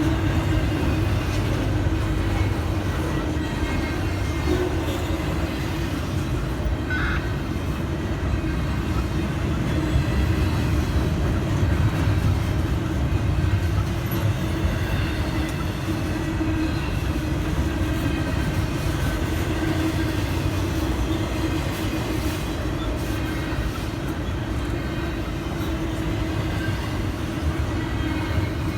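Intermodal freight train cars rolling past a crossing, with a steady rumble of wheels on rail.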